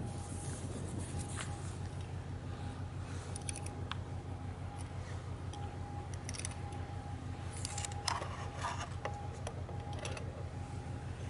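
Ship's diesel engines throbbing low and steady, with a faint steady hum tone over them and scattered light clicks.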